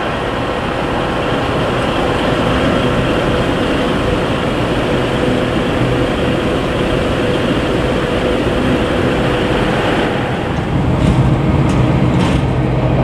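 Narrow-gauge peat railway train rolling past, a steady rumble with a held tone, growing heavier near the end, where a few sharp clanks come through.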